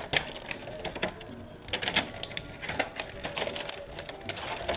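Clear plastic clamshell food containers clicking and clattering as they are handled, turned over and set down on a table: a run of sharp, irregular clicks.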